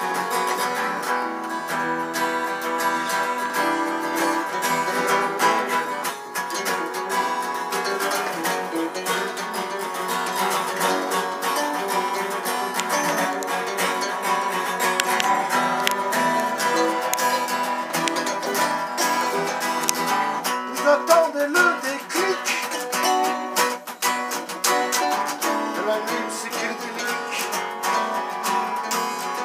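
Guitar music with a strummed acoustic guitar, playing continuously.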